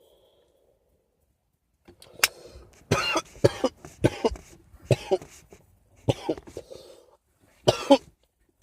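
A man coughing in a run of about six harsh coughs, starting about two seconds in, with short gaps between them.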